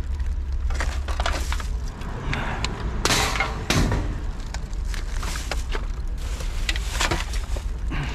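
Plastic rubbish bags rustling and crinkling as gloved hands rummage through a dumpster, with irregular clinks and knocks of cans and bottles shifting among the rubbish.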